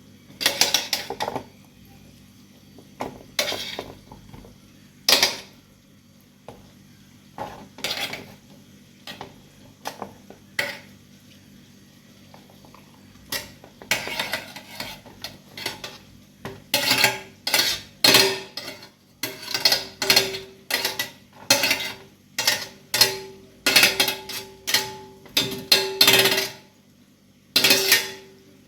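Kitchen utensils knocking and clinking against dishes. Scattered separate clinks give way, about halfway through, to a steady run of strikes about two a second.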